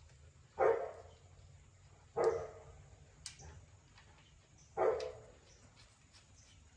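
A dog barking, three single barks a second or two apart.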